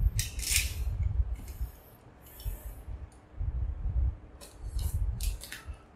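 Plastic wrapping being torn and pulled off a keyboard box: crinkling and rustling in a series of short bursts, over dull handling bumps.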